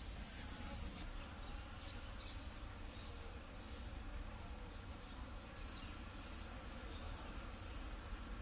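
Steady drone of insects over a low rumble.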